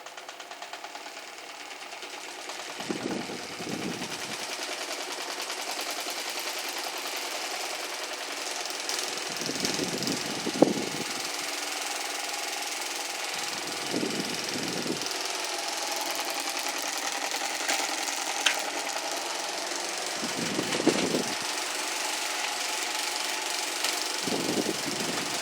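Mallory Boreal electric fan running and vibrating heavily, its blades misaligned from the factory. The sound grows louder over the first several seconds, with a few short low rumbles every few seconds.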